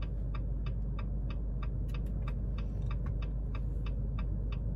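A car's turn-signal flasher ticking at an even pace, about three clicks a second, over a low steady hum inside the cabin.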